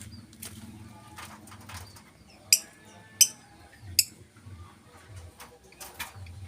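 A bird giving three short, shrill calls about two-thirds of a second apart, over a low steady hum.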